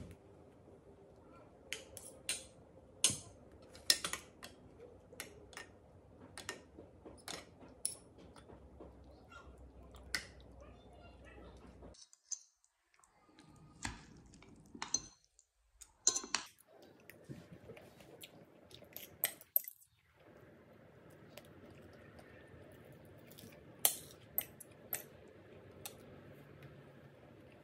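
Faint household handling sounds: a string of separate sharp clicks and clinks, like dishes and utensils being handled, with brief drops to silence about halfway through.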